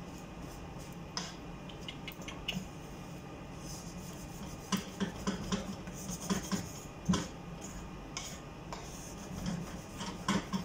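Wooden spatula stirring dry flour as it is toasted in a frying pan, scraping and knocking against the pan, with a run of sharper knocks around the middle and a few more near the end. A steady low hum runs underneath.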